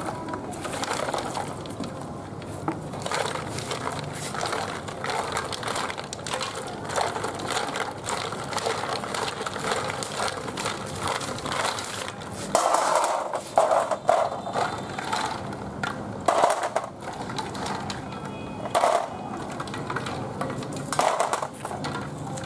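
Land snail shells clattering and grinding against each other and against a metal basin as gloved hands rub them clean in water, with some splashing. There are several louder bursts of rattling in the second half.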